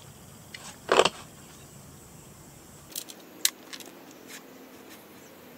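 Small metal engine parts clicking and clinking as a disassembled Honda GX35 engine is handled by hand: one sharp click about a second in, then a few lighter ticks.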